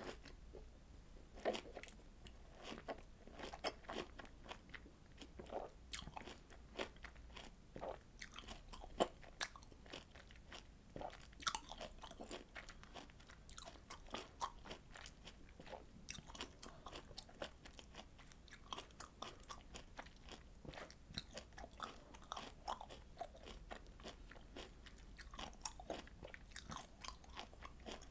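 A person chewing and biting citrus fruit: an irregular run of short mouth clicks and smacks, several a second.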